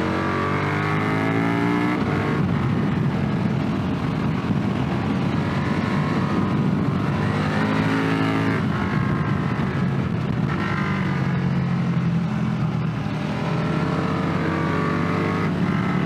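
Motorcycle engine accelerating through the gears, heard from the rider's seat: its pitch climbs, drops back at an upshift about 2 seconds in and again about 8.5 seconds in, then climbs again, over steady wind rush.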